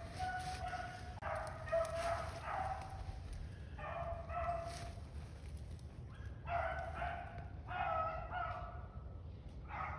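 A pack of rabbit hounds baying while they run a rabbit's track. Several dogs' voices overlap in spells of a second or so, broken by short pauses.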